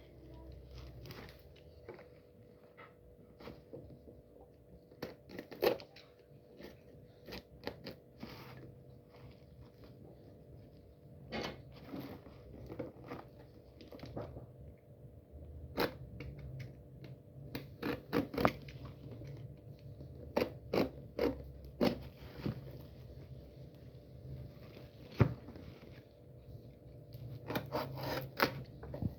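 A parcel being unboxed by hand: irregular crinkling, scraping and sharp clicks of packaging being handled and cut open, over a faint steady hum.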